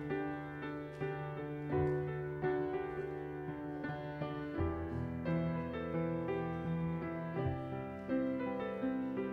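Slow, gentle instrumental keyboard music: held chords that change about once a second, with no singing.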